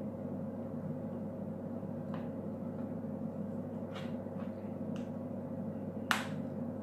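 Light plastic clicks from tweezers and nail tips being handled, four in all, the loudest near the end, over a steady low hum.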